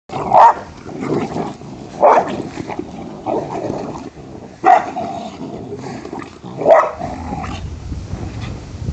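Dogs barking while they play, four loud barks about two seconds apart with quieter growling between them.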